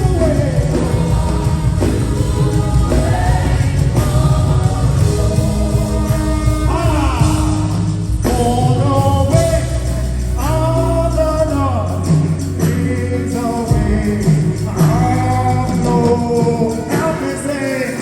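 Live gospel worship music: a singer's voice holds and slides through long, wavering notes over a band with sustained bass and keyboard chords.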